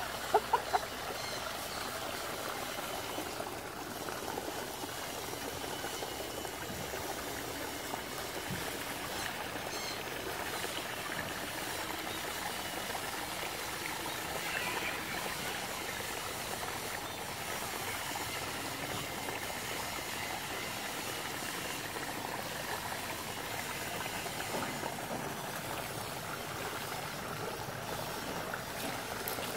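Water running and trickling steadily into a garden koi pond, with a few brief sharp knocks about half a second in.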